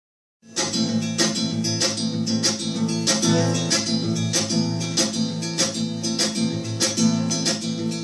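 Acoustic guitar strummed in a steady rhythm of about three strokes a second, starting about half a second in: the instrumental introduction to a bard song.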